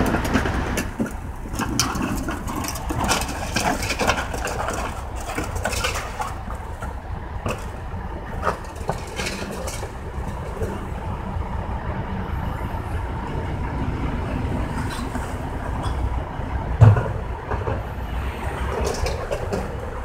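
1980s rear-loader garbage truck's engine idling steadily, with clattering and knocks from the hopper as trash is loaded, and one loud thump late on.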